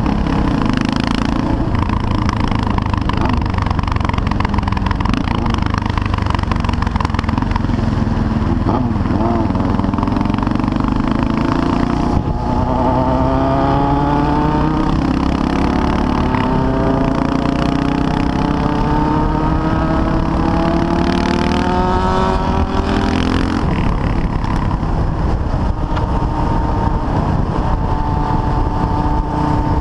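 CCM R30 supermoto's 644cc Suzuki single-cylinder engine running under way, with wind noise on the microphone. About twelve seconds in, the engine note climbs steadily as the bike accelerates, eases off briefly after about twenty-three seconds, then holds a steady pitch.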